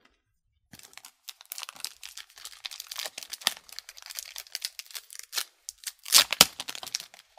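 The wrapper of a Tim Hortons Upper Deck hockey card pack crinkling and tearing as it is ripped open by hand, with the loudest rips about six seconds in.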